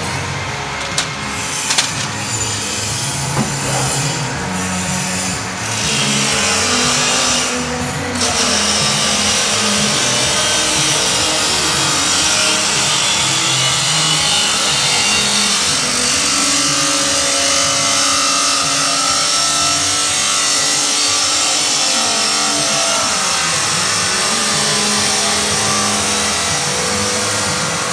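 A grinder running steadily in a metal workshop, a loud hissing grind with a motor hum beneath it. A few sharp knocks come in the first two seconds, and the grinding grows louder about six to eight seconds in.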